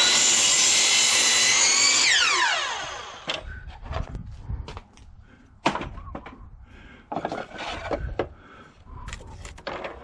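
Hercules sliding miter saw cutting through a wooden board with the blade at full speed, then the motor winding down in a falling whine about two to three seconds in. After that, scattered knocks and clunks of wood and saw being handled.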